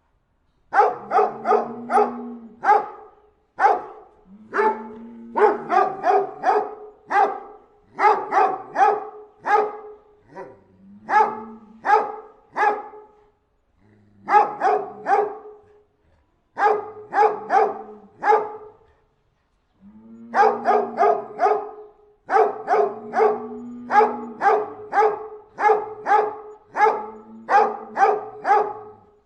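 A dog barking in quick bursts of three to six barks, with brief pauses between bursts.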